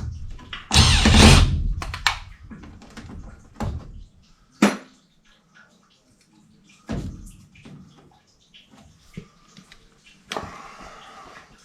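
Work noises from handling metal parts and tools: a loud scraping rush about a second in, then scattered clicks, a sharp click, a dull thud and a softer scraping stretch near the end.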